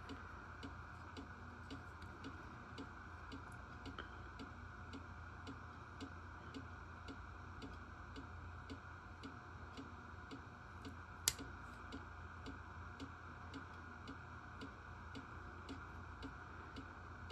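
Faint, steady ticking of a clock, about two ticks a second, over a low hum, with one sharper click about eleven seconds in.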